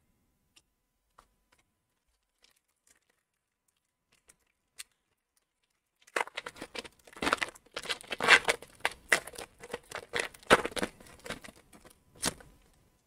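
Foil wrapper of a hockey card pack being torn open by hand, crinkling and tearing in a dense run of crackles that starts about halfway through, after a few faint clicks.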